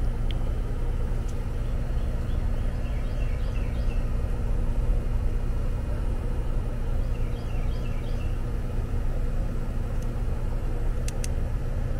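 Rheem split-system outdoor condensing unit running: its compressor and condenser fan make a steady hum with a constant electrical drone. Short high chirps come a few times, and there are two sharp clicks near the end.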